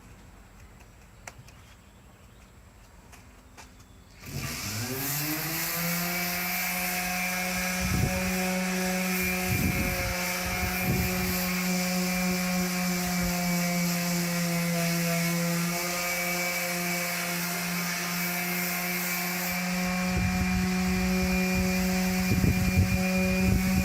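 An electric sander switches on about four seconds in, winds up to speed over a second or two and then runs steadily with a high hum, sanding the bare steel of a bumper, with uneven louder scuffs as the pad bears on the metal.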